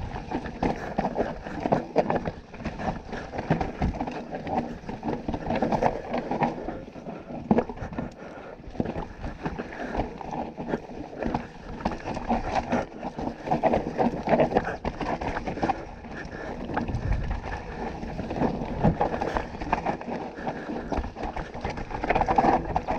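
2018 Canyon Torque CF9 Pro mountain bike riding hard down a rough trail: tyres rolling over dirt and rocks, with constant uneven rattling and knocking from the frame, chain and suspension.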